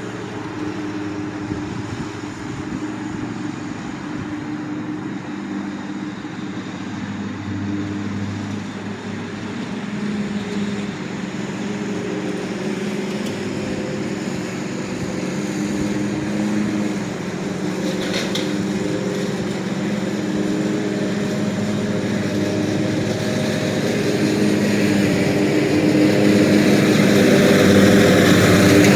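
Zero-turn riding mower's 23 HP Kawasaki V-twin engine running steadily, growing gradually louder over the last several seconds.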